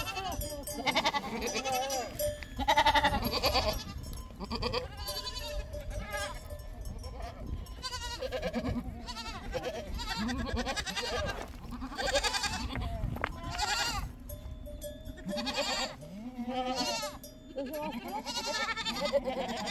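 A flock of goats and sheep bleating, one call after another and often overlapping.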